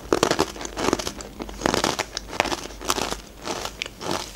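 Close-miked chewing of very hard rye-bread croutons (Tri Korochki sukhariki): a run of irregular, crisp crunches.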